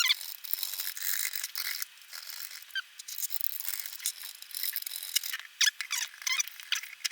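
Screwdriver tip scraping and scratching old black residue off a speaker amplifier's circuit board where the capacitors were removed: a run of irregular short scrapes with squeaky strokes.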